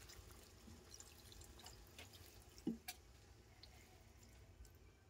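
Faint drips and trickling of water poured from a steel jar into a pan of taro curry, with one light knock a little under three seconds in.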